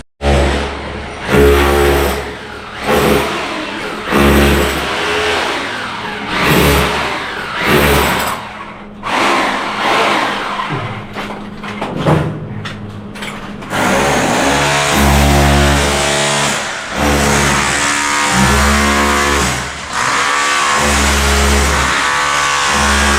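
Background music with a heavy, pulsing bass line and chords; it becomes fuller and more continuous about halfway through.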